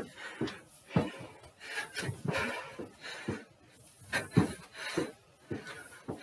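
Feet thudding on a wooden stair step as a man does repeated box jumps onto it: a string of irregular landings and shuffling footfalls.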